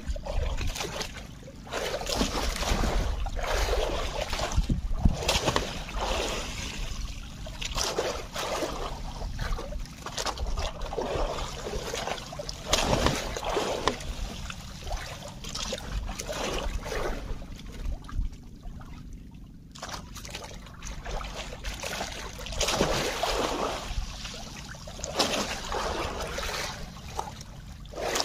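Sea water sloshing and splashing against a small boat in irregular surges, over a steady low rumble.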